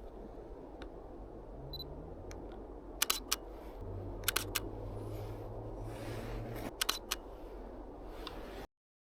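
Canon EOS M3 shutter firing three times, each release a quick double click, with a short high beep about two seconds in.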